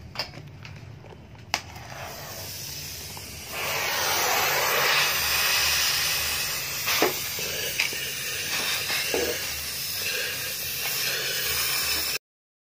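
Gas cutting torch hissing steadily as its flame cuts out the internal baffles of a stock Yamaha NMAX muffler, with a few short pops. The hiss starts loud about three and a half seconds in and stops abruptly near the end.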